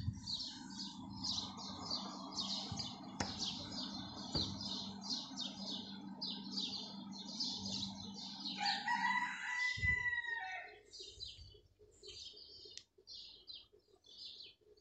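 Small birds chirping rapidly and continuously, with a rooster crowing once about nine seconds in.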